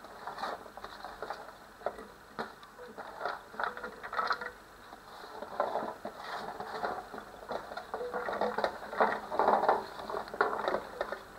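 Chopped shallots, chillies, candlenuts and other spice pieces sliding off a metal tray and dropping into a blender jar: an irregular patter of small knocks and clatters.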